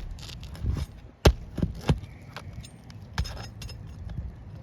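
An asphalt roof shingle being pried and pulled loose: a run of sharp clicks and knocks at irregular gaps over low scraping, the loudest a little over a second in.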